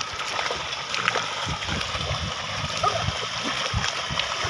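Muddy water splashing irregularly as a pair of bullocks pull a plough at speed through a flooded paddy field, their hooves and the plough churning the mud and water.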